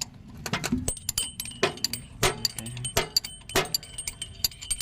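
Sharp metallic clicks and clinks from a spanner working the brake-drum nuts on a tractor's rear brake. They come in a fairly regular rhythm, about one and a half a second.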